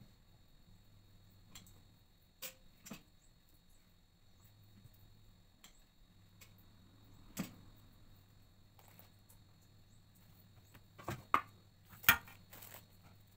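Scattered light clicks and knocks of an air fryer being loaded by hand, bread slices set into the pot, with the two loudest knocks near the end as the top unit goes back on.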